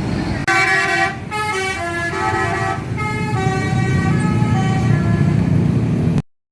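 Bus 'telolet' musical horn playing a quick tune of short, stepped notes over a low traffic rumble, starting suddenly about half a second in and cutting off abruptly near the end.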